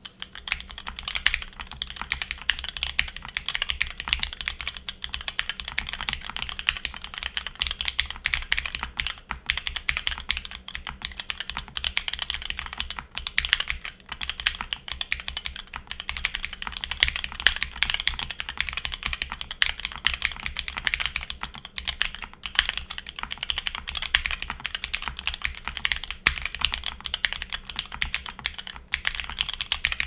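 Steady, fast typing on a Cycle7 gasket-mounted mechanical keyboard with lubed Cherry MX Brown tactile switches, an aluminium plate, foam dampening and PBT keycaps: a dense, unbroken stream of keystrokes.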